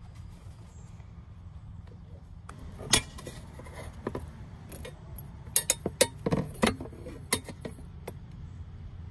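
Sharp clicks and clinks of hard plastic and metal parts being handled around a car battery: one loud click about three seconds in, then a quick cluster of clicks a couple of seconds later, over a steady low hum.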